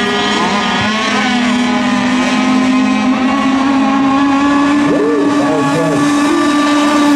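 Several radio-controlled racing boats running flat out, giving a steady, high-pitched engine note made of several tones, with short pitch sweeps as boats pass about five seconds in.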